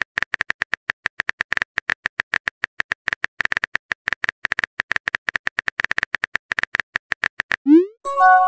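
Keyboard typing sound effect from a texting app: rapid, slightly uneven taps, several a second, as a message is typed out. Near the end it stops, followed by a short rising swoosh and a held chime of a few tones as the message sends.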